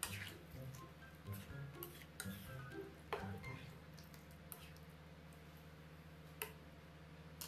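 Light background music over a spatula stirring thick curry in a nonstick pan, with a few sharp clicks of it against the pan. The music's notes drop away about halfway through.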